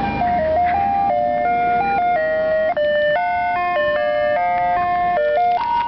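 Ice cream van's music box playing its jingle: a simple melody of clear single notes stepping up and down, with higher notes joining about halfway through.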